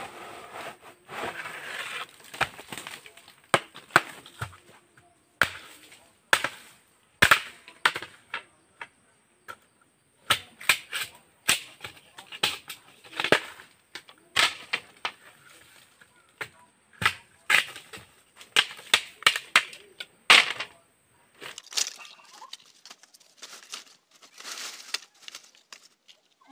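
Bamboo cracking and clattering as it is handled: a long run of irregular sharp cracks and knocks, some very loud, with rustling in between.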